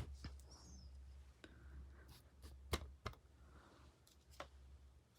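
A few faint, scattered light clicks and taps over a low hum, typical of small objects being handled on a workbench.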